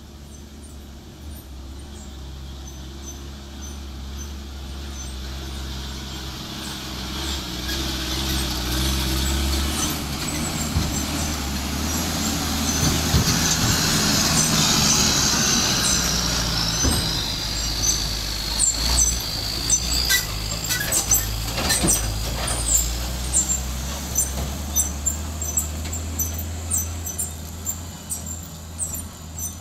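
Heavily loaded dump truck's diesel engine running as it approaches and passes close by, getting louder toward the middle. A high brake squeal slowly falls in pitch as it goes by. Later, sharp clicks and crackles sound over the fading engine.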